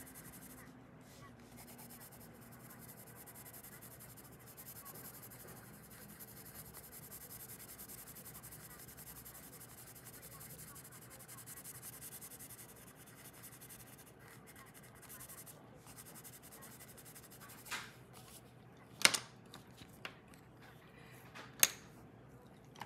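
Colored pencil scratching steadily on paper as an area is shaded in. Near the end a few sharp taps break in as the shading stops and the sheet is handled.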